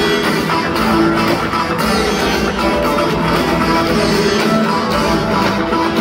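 Live rock band playing an instrumental passage with no singing: guitars, drums and a keytar played over the full band, loud through the venue's PA.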